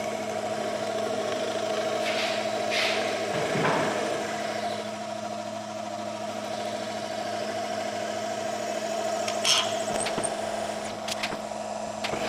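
Drill press motor running with a steady hum while a 1/8 inch brad point bit is plunged into a walnut guitar body. Louder cutting noise swells about two to four seconds in and again near ten seconds, and a few sharp clicks come near the end.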